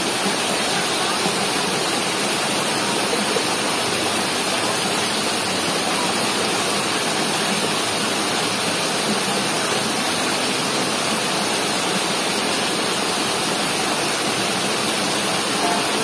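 Small rocky waterfall: white water cascading down over boulders, heard up close as a steady, even rushing.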